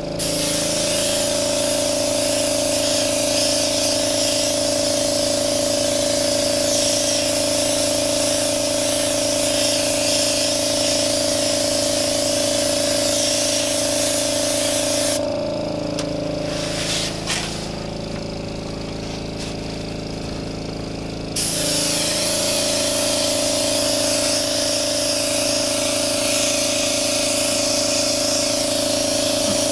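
Airbrush spraying paint with a steady hiss over the hum of its small air compressor. About 15 seconds in the spraying stops for roughly six seconds and the compressor's hum drops lower in pitch, then the spray starts again.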